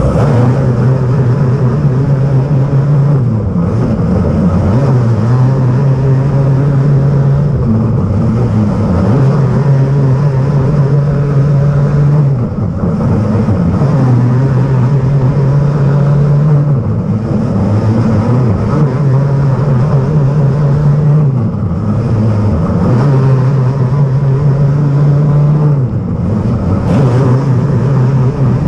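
Outlaw kart engine heard onboard, running lap after lap on a short oval: the note holds steady for a few seconds, then dips briefly for each turn, about every four and a half seconds.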